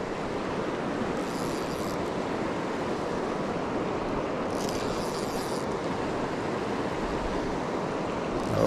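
Steady rushing of a river's flowing water, an even hiss that holds at one level throughout.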